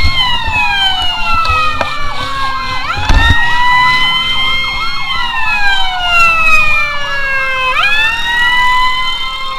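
Electronic sirens on fire-brigade vehicles. One wails, rising sharply about every five seconds and falling slowly, over a second, faster warbling siren. There is a low thump about three seconds in.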